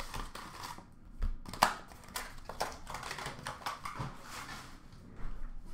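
Hockey card box and pack wrappers being handled and torn open: irregular crinkling and rustling of wrapping, broken by short clicks, the sharpest about a second and a half in.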